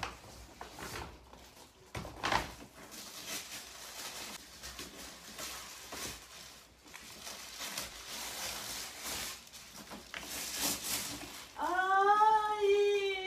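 Paper gift bag and tissue paper rustling and crinkling as a boxed doll is pulled out. Near the end a woman's high, drawn-out wailing voice starts, the emotional cry of someone moved by the gift.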